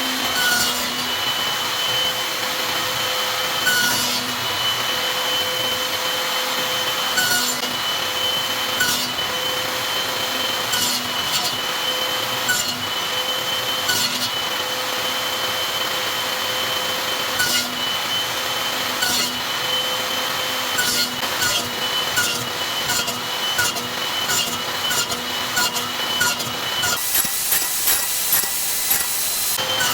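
An electric power tool working wood: a steady motor whine that dips briefly many times as it bites under load. A louder, rougher stretch comes near the end.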